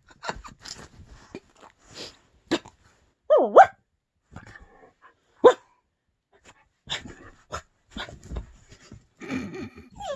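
A pet dog in an excited play frenzy, giving short high yips and whines about three seconds in and again near the end, amid many scattered clicks and scuffs.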